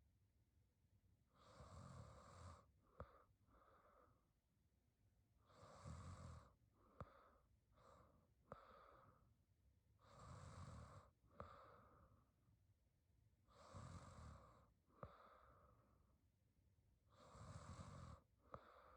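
A young woman snoring faintly in her sleep: five slow breaths about every four seconds, each a low snore ending in a brief sharp click, followed by a softer breath.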